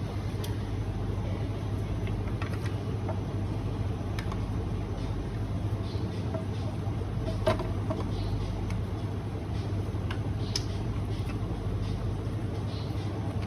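Scattered light clicks and taps of small coffee grinder parts being handled during cleaning, a few seconds apart, over a steady low hum.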